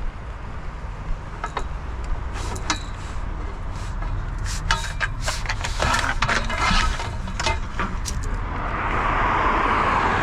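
Scrap metal being handled and loaded: a run of knocks and clanks, thickest in the middle, over a steady low engine hum. Near the end a steady hiss swells up.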